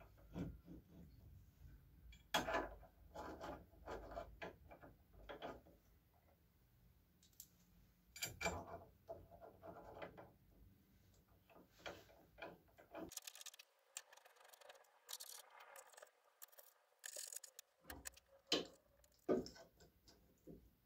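Faint, irregular metal clicks, clinks and scrapes from a hex key turning bolts that fasten a steel carriage plate to linear-rail bearing blocks.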